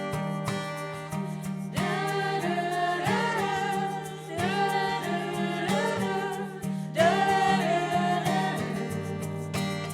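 Live music: singing over a plucked guitar accompaniment, the voices coming in as phrases about two seconds in and again later.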